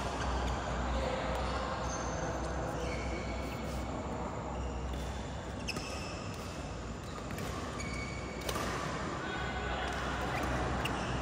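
Badminton play on an indoor court: sharp racket hits on the shuttlecock and short high squeaks of court shoes on the floor mat. Voices and a steady low hum sit underneath.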